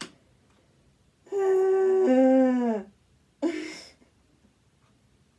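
A woman's voice humming a two-note falling "mm-mm": a held note, then a lower one sliding down. About a second later comes a short breathy vocal sound.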